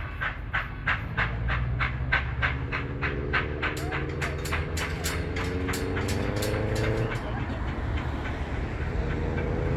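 Steam locomotive 3801, a streamlined C38-class 4-6-2, working a passenger train: its exhaust chuffs in an even rhythm of about three beats a second over the train's rumble.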